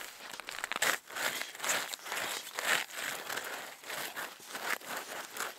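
Boots crunching and scuffing on crusty snow over lake ice: irregular crisp crunches about once or twice a second.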